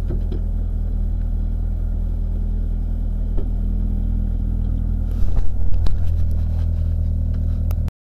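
Ford Escort RS1800's Cosworth BDA twin-cam four-cylinder engine idling steadily, heard from inside the car's cabin. A cluster of knocks and clatter comes a little past five seconds in, and the sound cuts off abruptly near the end.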